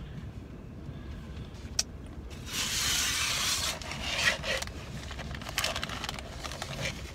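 A cardboard corn starch box and its inner paper bag rustling and scraping as they are handled at the mouth. A sharp click comes a little under two seconds in, and the longest, loudest rustle follows just after it.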